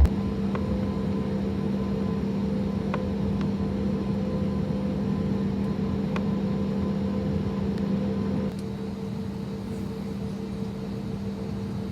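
Steady cabin hum of an Airbus A320neo airliner, a drone with a steady low tone and a few faint ticks; the tone stops and the hum drops slightly about eight and a half seconds in.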